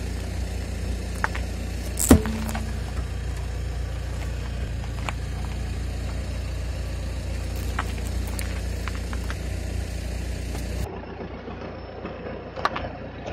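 A car engine runs steadily at low revs as the tyre creeps over grit. About two seconds in there is one sharp crack with a brief ringing tone, as a small terracotta clay piece breaks under the tyre, followed by scattered small gravel clicks. Near the end the engine rumble drops away suddenly.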